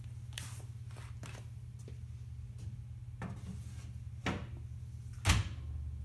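Light knocks and clatter as a clay bowl on its bat is handled and set into a 1978 Amana Touchmatic Radarange microwave, then a sharp click-thump a little after five seconds in as the microwave door is shut.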